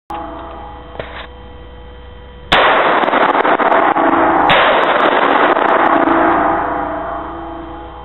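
Two loud rifle shots from an M4A1 carbine, about two seconds apart, each a sudden blast that runs into a long wash of overloaded noise fading away over a few seconds. A steady electrical hum sits underneath.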